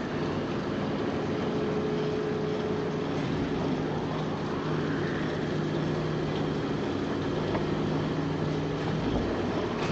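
Steady mechanical engine hum from a 1950s film sound effect, made of several low, level tones over a rumbling haze. A fainter whine rises in pitch about every six or seven seconds.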